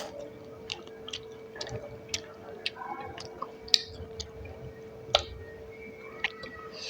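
A person chewing food close to the microphone, with irregular sharp wet mouth clicks and smacks, the loudest about four and five seconds in. A faint steady hum runs underneath.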